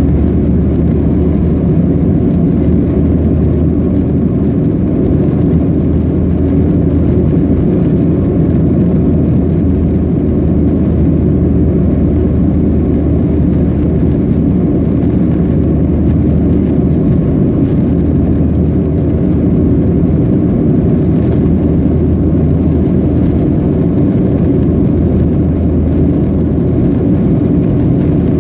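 Steady low drone of a Boeing 737-700 in the climb after takeoff, heard inside the cabin: its CFM56-7B turbofan engines and the rush of air over the fuselage.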